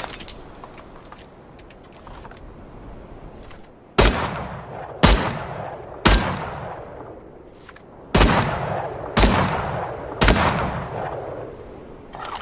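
Assault rifle firing six single shots, two groups of three about a second apart, each shot followed by a long echoing tail. A few faint clicks come before the first shot.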